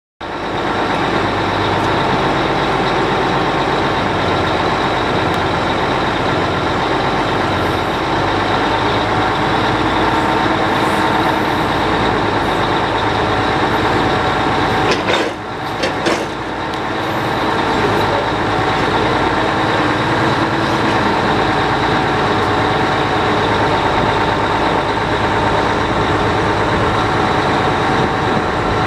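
Truck engine running steadily to power the hydraulics of a Fassi F140 truck-mounted knuckle-boom crane as the boom is raised and extended, with a steady whine over the engine. About halfway through the sound dips briefly, with two sharp clicks.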